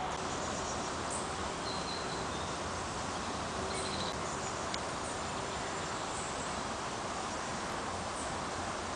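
Steady outdoor background hiss, with a few faint, short, high chirps.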